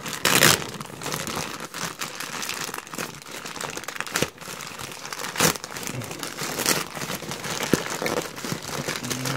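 Green plastic poly mailer bag crinkling and rustling as hands pull and tear it open, with a few louder sharp rips of the plastic.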